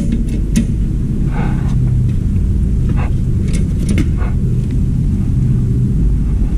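A steady low rumble runs throughout. Over it come scattered light clicks and knocks, and a short rustle about a second and a half in, as parts are handled at the workbench.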